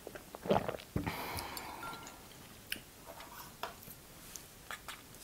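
Close-miked eating sounds: a swallow of tea about half a second in, then a mug knocked down onto a wooden board about a second in, followed by quiet chewing with a few light clicks of a fork.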